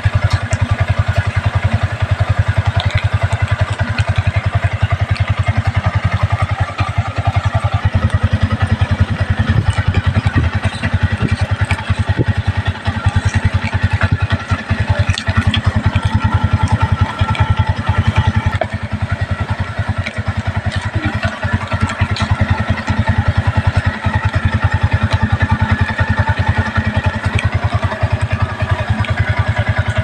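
Yamaha motorcycle engine idling steadily through an aftermarket slip-on muffler, an even, fast low throb with no revving.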